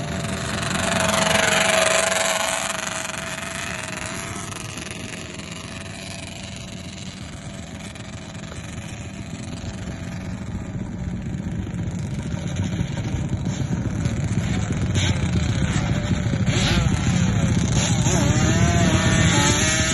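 Yamaha Banshee two-stroke twin-cylinder quads running on sand. One passes close and loud about a second or two in. Later several engines rev up and down together toward the end.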